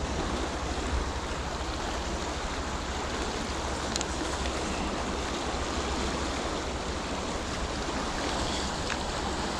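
Chalk-stream river water rushing steadily in a continuous wash of noise, with two faint clicks, about four seconds in and near the end.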